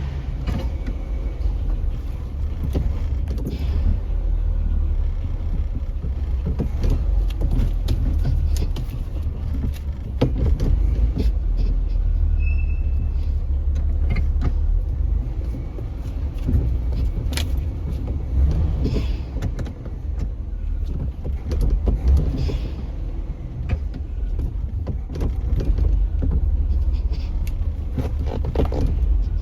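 Chevrolet Caprice Classic engine running steadily with a low rumble, with scattered clicks and knocks over it.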